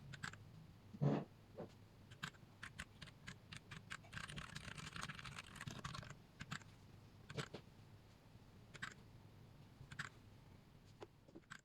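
Faint, scattered single key presses on a Rexus Daxa M71 Pro mechanical keyboard with Gateron Brown switches, each a separate click. There is a soft thud about a second in and a brief rustle in the middle.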